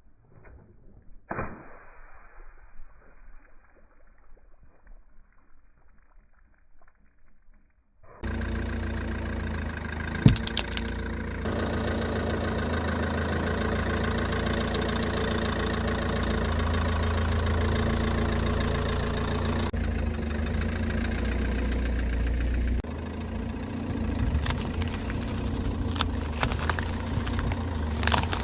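Car engine running steadily, starting suddenly after about eight seconds of faint, muffled sound; a sharp crack comes about two seconds after the engine starts, and a few clicks near the end.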